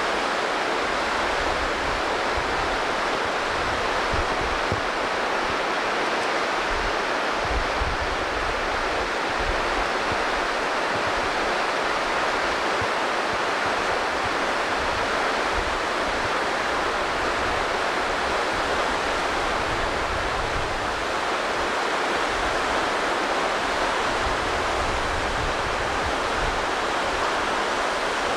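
Rushing water of a fast stream or river, a steady even rush with an uneven low rumble beneath it.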